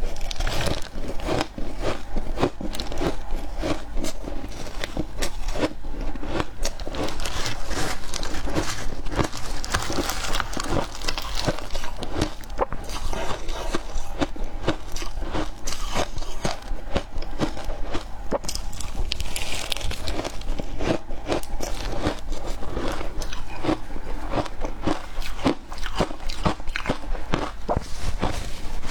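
Milk-powder shaved ice being bitten and chewed: a rapid, continuous run of crisp crunches.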